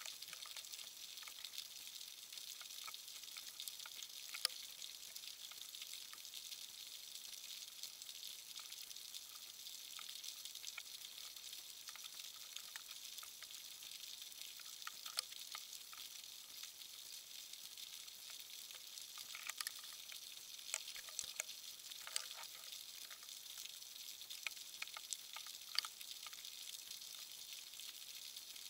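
Underwater ambience picked up by a submerged camera: a steady high hiss with scattered sharp clicks and crackles, a few of them louder.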